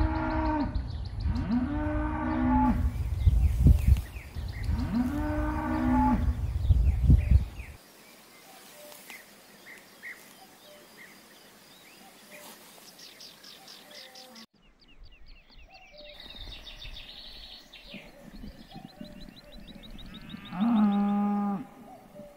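Cattle mooing: three moos in the first seven seconds, each starting higher and dropping in pitch, then one more moo near the end.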